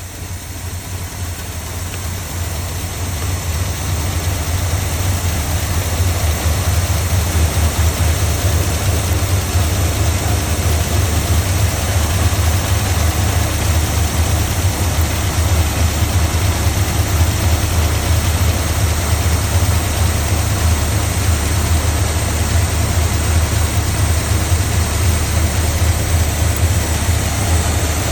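Engine running at a steady idle just after being cranked into life on a jumper-wired temporary ignition; it grows louder over the first five seconds or so, then holds an even, deep hum.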